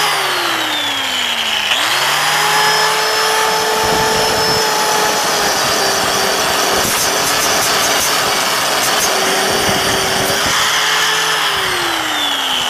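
Electric power tool scouring corrosion off the inside of an aluminium mag wheel. Its motor runs continuously, with the pitch sagging as it is pressed into the metal near the start and again near the end, and holding steady in between.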